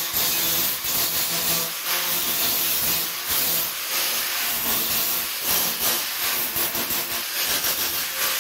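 Angle grinder grinding back weld on steel car bodywork. The disc hisses against the metal, the level rising and falling as it is pressed on and eased off, with the motor's hum underneath; it stops at the end.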